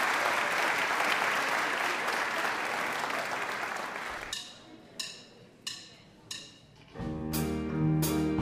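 Audience applause dies away, then four sharp clicks, evenly spaced about two-thirds of a second apart, count the band in: a drummer clicking sticks. About seven seconds in, the house band comes in with a steady drum beat and instruments.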